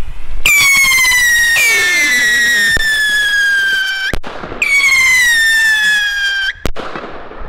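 Nico Phantom fireworks rockets whistling as they climb: three whistles starting one after another, each high and falling slowly in pitch, cut off with a short sharp crack as the rockets break.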